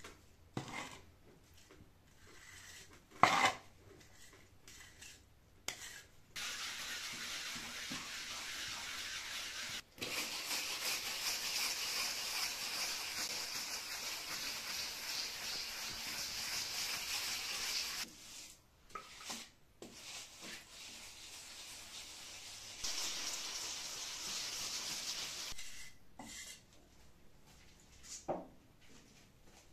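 A wooden float rubbing over fresh calfitice render (lime, fibre, earth and a little cement), with long stretches of steady scraping as the float is worked across the surface to level it, take off the excess and fill the low spots. Scattered knocks and short scrapes come first, with one sharp knock about three seconds in.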